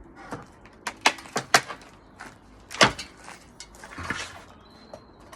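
Pallet boards cracking and knocking as they are pried apart with a pallet splitter: a quick run of sharp cracks about a second in, the loudest crack near three seconds, and a brief scraping rasp after it.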